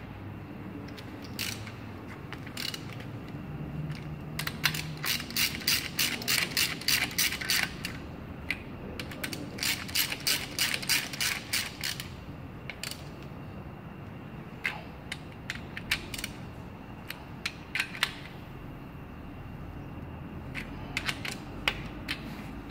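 Hand ratchet wrench clicking as a socket turns bolts on an engine's cylinder head. There are two long runs of rapid clicks in the first half, and scattered single clicks afterwards.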